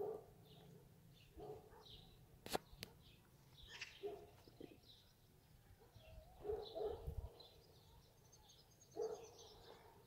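Small birds chirping here and there over a dog barking about six times in short single barks. A sharp click about two and a half seconds in is the loudest sound.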